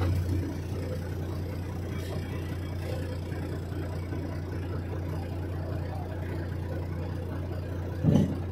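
Truck's diesel engine idling steadily, heard from inside the cab, with a brief low sound near the end.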